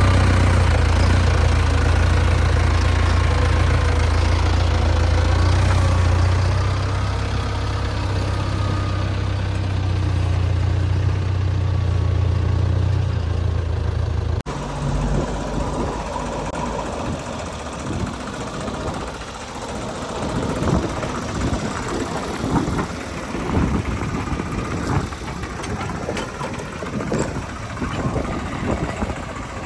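Diesel engine of a backhoe loader or tractor idling with a steady low hum. About halfway through there is an abrupt cut, and it gives way to a rougher, uneven running sound that rises and falls in short surges.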